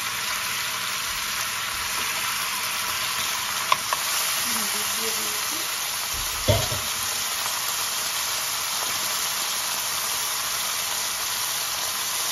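Beef pieces on the bone sizzling steadily in hot oil in a stainless steel pan. Two sharp clicks come a little under four seconds in, and a low thump about six and a half seconds in.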